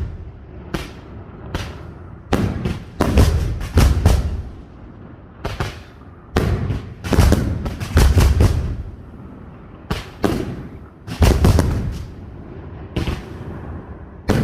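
Aerial fireworks display: shells bursting in quick clusters of sharp bangs every second or two, each with a deep, rumbling tail.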